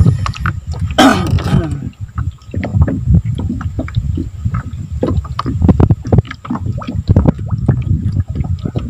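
Water slapping and gurgling against the hull of a small aluminium boat, with a low irregular rumble and frequent short knocks. A brief higher-pitched sound comes about a second in.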